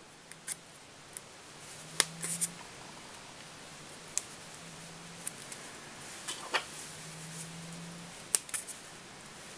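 Small, sharp, irregular clicks and snips of oval tinsel being stripped by hand, its metal wrapping pulled off the thread core, the loudest about two seconds in. A faint low hum comes and goes underneath.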